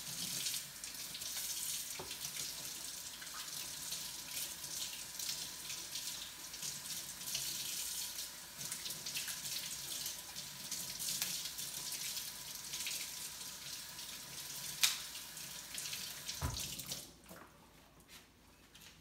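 Kitchen tap running into a sink with a steady hiss of water, likely rinsing produce, with a single sharp knock about 15 seconds in; the water shuts off about 17 seconds in.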